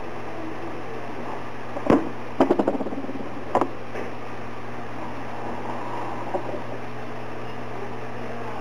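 Small hard objects handled on a workbench: a sharp knock about two seconds in, a quick rattle of clicks right after, and another knock about a second and a half later, as a battery cell and a blade are set down on the table. A steady hum runs underneath.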